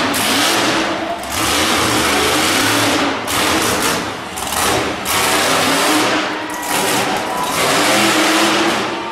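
Monster truck engine revving hard and loud, with the throttle lifted off briefly and opened up again several times.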